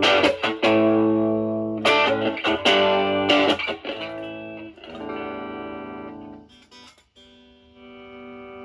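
Fender Stratocaster with single-coil pickups played through a Pro Co Brat distortion pedal with its gain low (about 9 o'clock), into a Marshall Valvestate amp, giving a lightly overdriven tone. Chords are strummed in short strokes, then one chord is left to ring and fade and is cut off about seven seconds in. Another chord rings softly near the end.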